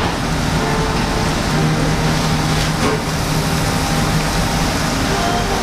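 Steady background din of a fast-food restaurant: an even rush of noise with a low hum under it, and a faint clatter about three seconds in.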